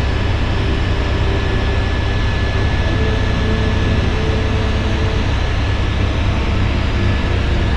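Helicopter in flight heard from inside the cabin: steady, heavy rotor and engine noise with a thin, constant high whine.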